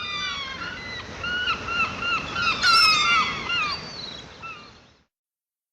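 Seagulls calling: a quick run of short, screeching calls, with one longer, louder call falling in pitch midway. The calls fade out about five seconds in.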